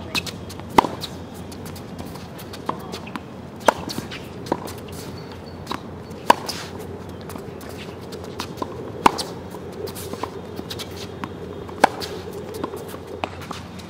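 Tennis racket striking balls and balls bouncing on the court: sharp single pops every one to three seconds, with shoes scuffing on the court between shots.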